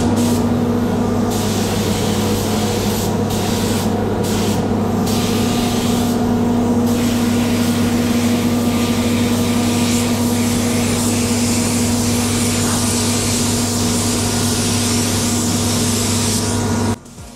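Gravity-feed paint spray gun hissing with compressed air as solvent base coat is sprayed onto a car bonnet. The hiss breaks off briefly between passes several times in the first seven seconds, then runs unbroken, over a steady low hum. The sound cuts off suddenly near the end.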